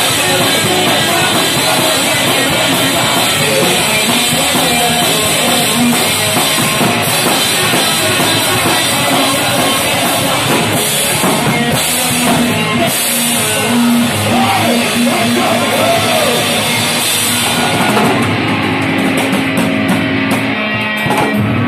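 Live punk rock band playing loud and fast: pounding drum kit with cymbals, distorted electric guitars and bass guitar, heard from right beside the drums.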